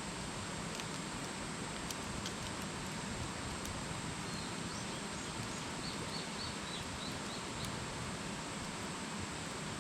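Wood campfire burning with a steady hiss and a few sharp crackles now and then. A bird calls briefly and faintly around the middle.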